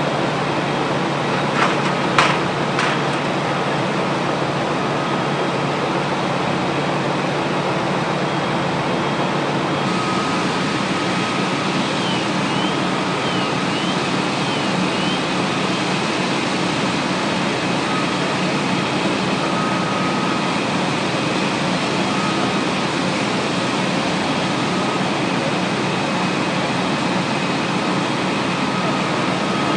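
Fire engine running steadily, a constant engine hum under a hiss, with a few sharp knocks about two seconds in.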